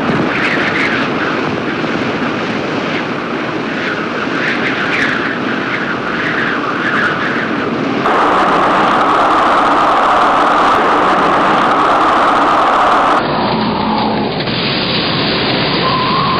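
Tornado winds picked up by a surveillance camera's microphone: a loud, continuous rushing noise with irregular gusty surges in the first half. It changes abruptly in character about eight seconds in and again near thirteen seconds.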